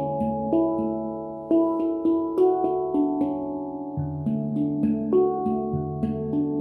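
Handpan played by hand in a church: a slow melody of struck steel notes that ring on and overlap, a few new notes a second, with a deep low note sounding a couple of times in the second half.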